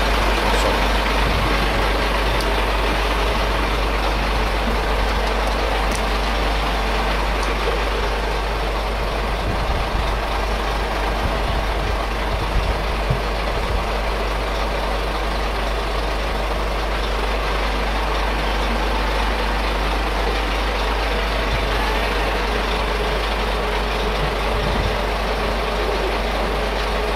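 Livestock truck's engine idling, a steady unbroken drone, with a couple of brief knocks about halfway through.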